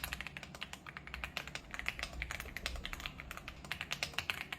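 Typing on an AULA F99 Pro gasket-mounted mechanical keyboard with linear switches: a fast, even stream of keystroke clicks, several keys a second.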